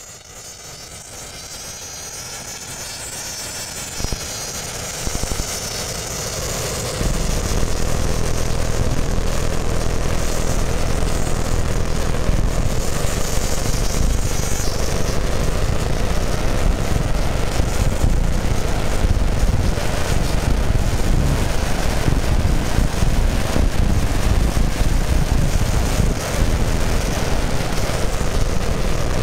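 Jet airliner engines heard from the ground as the plane climbs overhead: a high whine at first that grows louder, then about seven seconds in a loud, steady rumbling noise that holds on.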